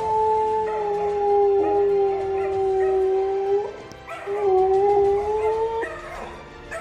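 Siberian husky howling: two long, steady howls, the first about four seconds long and sinking slightly in pitch, the second shorter and rising a little toward its end.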